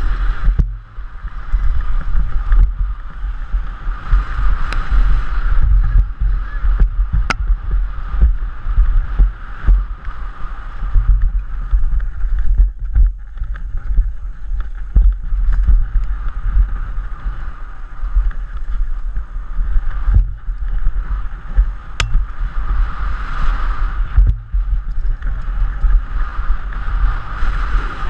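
Wind buffeting the microphone of a helmet-mounted GoPro Hero 3 during a fast downhill mountain-bike run, with a constant low rumble and the bike rattling and clicking over the rough dirt trail.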